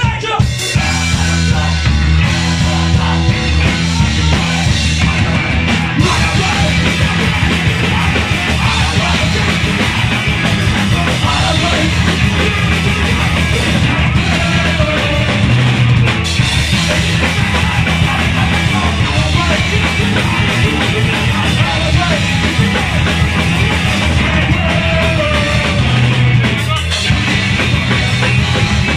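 Punk rock band playing live: electric guitars, bass and a drum kit at full volume, with a singer shouting over them.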